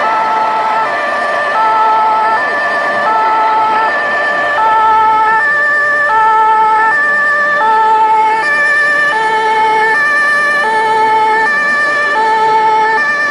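Electronic two-tone German fire-brigade siren (the 'tatütata') from the sound modules of radio-controlled model fire trucks, switching evenly back and forth between a high and a low note. A second, lower two-tone siren joins about a third of the way in, out of step with the first.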